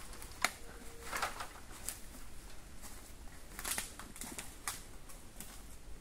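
Footsteps crunching on thick dry bamboo leaf litter and fallen stalks: a string of irregular crackles and snaps.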